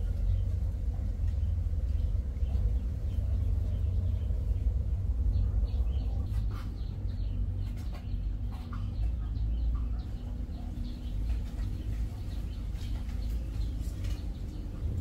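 A steady low rumble, with scattered short clinks and scrapes of a metal spoon in a stainless steel bowl from about five seconds in.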